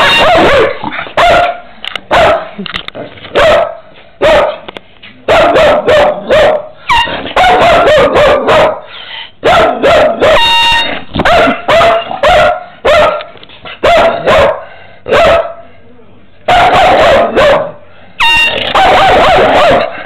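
Dog barking loudly and repeatedly at an air horn. The horn gives short blasts at the very start, about ten and a half seconds in, and near the end, with bursts of barking around each.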